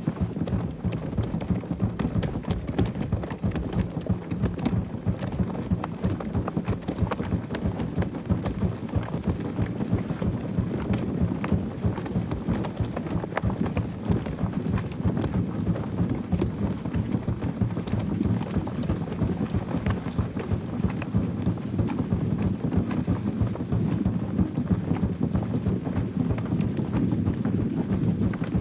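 Film soundtrack of a large crowd scene: a continuous, dense patter of rapid beats, like many hooves or hands, over a steady low musical drone.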